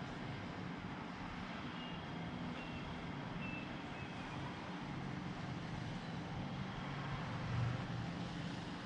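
Steady rain noise with a low rumble underneath that swells briefly near the end.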